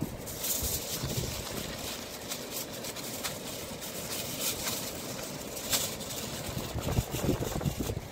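Aluminium kitchen foil being unrolled from its roll and folded by hand, crinkling in irregular short crackles, over a low rumble of wind on the microphone.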